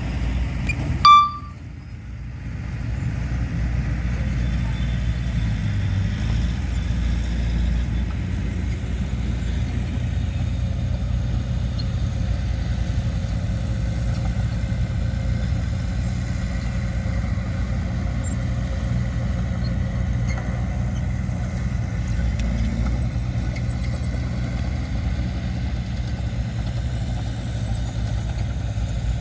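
Heavy earthmoving machinery running steadily with a low diesel engine rumble. About a second in there is one short, loud high-pitched tone, after which the rumble briefly drops and then comes back.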